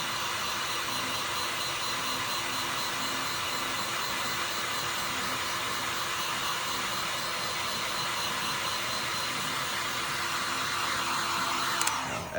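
Hot-air blower running steadily, an even whooshing hiss, as it heats a phone to soften the adhesive holding the camera; it shuts off suddenly near the end.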